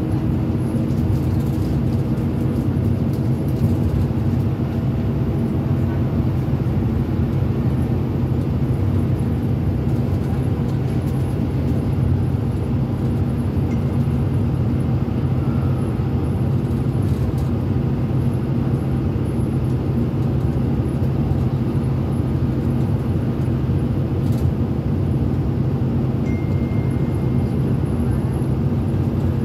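Steady drone of a minibus engine and tyre noise heard from inside the cabin while driving through a tunnel, with a low, even hum throughout.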